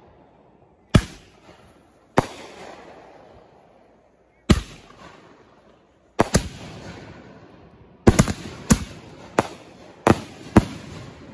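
Fireworks going off: a string of sharp bangs, each followed by a fading echo, a second or two apart at first and then in quick clusters over the last few seconds.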